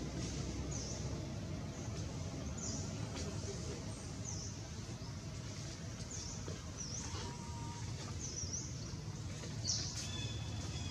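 A bird's short, high chirps repeating about every second or so over a steady low rumble of outdoor background noise, with a brief click near the end.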